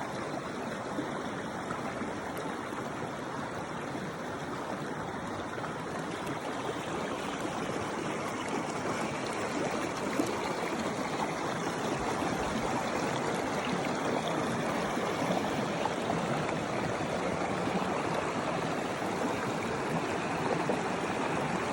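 Running water of a stream flowing steadily, an even, unbroken trickling and splashing that gets slightly louder about ten seconds in.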